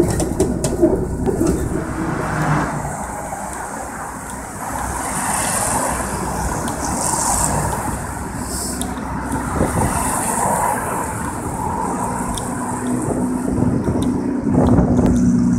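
Road traffic noise: a steady vehicle rumble with the hiss of cars going by.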